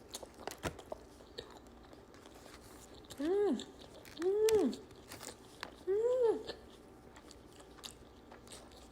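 Close-up chewing and biting of a toasted sub sandwich, with small wet mouth clicks. Three short hummed 'mmm' sounds of enjoyment, each rising and falling in pitch, come about three, four and six seconds in and are the loudest sounds.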